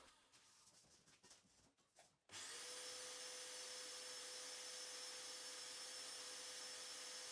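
Random orbital sander with dust extraction, quiet but for a few faint clicks, then switching on abruptly about two seconds in and running steadily with an even hum while sanding sprayed polyester filler on a car body panel.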